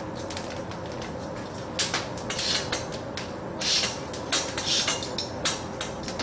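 Metal clinking and clattering in irregular knocks, like kitchen utensils or pans being handled, over a steady background hum.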